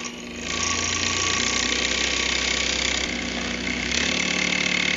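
Penn State Industries pen finishing station's electric motor running, with a loud rough rubbing noise starting about half a second in as a bar of polishing compound is pressed against the spinning cloth buffing wheel to load it.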